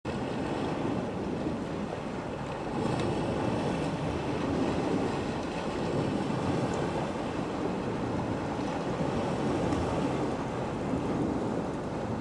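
A steady, even rushing noise, low in pitch, with no distinct events.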